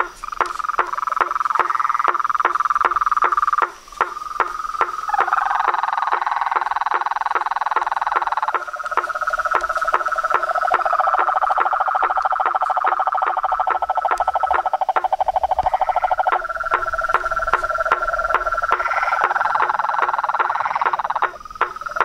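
Night chorus of frogs calling. Several overlapping steady trills start and stop at different times, over a regular ticking of clicks.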